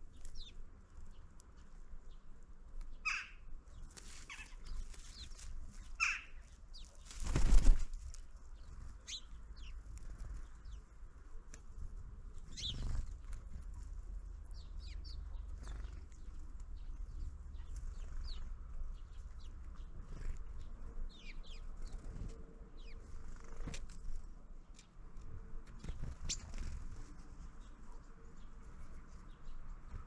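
Small birds at a winter feeder: wings flapping as they come and go, with short high chirps and clicks scattered throughout. A loud flutter about seven and a half seconds in, over a low steady rumble.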